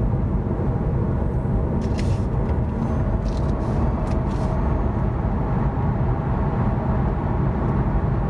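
Steady tyre and road noise inside the cabin of a Hyundai Ioniq Electric driving along a curving slip road, with a few short clicks around the middle. There is no engine note, only the tyres rolling and the wind.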